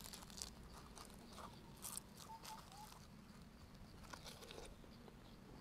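Faint eating sounds: bhatura torn by hand and chewed, with a few soft clicks and crackles.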